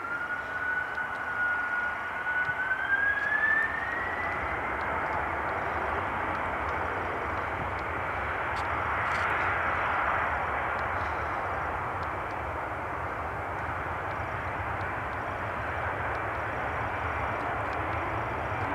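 Jet airliner engines passing: a whine rising in pitch over the first few seconds over a broad rushing roar that swells to its loudest about halfway through, then settles into a steady low rumble.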